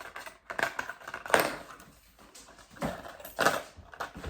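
Irregular rustling and knocking of gift packaging and items being handled and set down, in a few short bursts.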